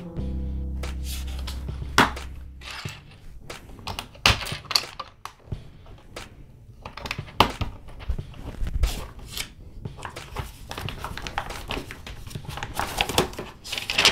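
Plastic LEGO pieces clicking and rattling as they are handled, picked through and pressed together: a string of sharp clicks that grows busier near the end. A steady low hum runs underneath at first and stops about three seconds in.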